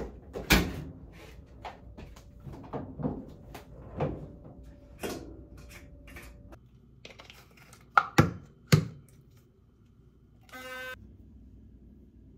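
Irregular knocks and clatters of things being handled and set down, the sharpest just after the start and a cluster about eight seconds in, followed near the end by a short buzzy electronic beep.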